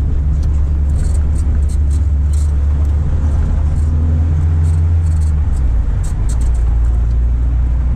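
Car engine and road noise heard inside a moving taxi's cabin: a steady low drone that shifts slightly about six seconds in, with scattered light ticks.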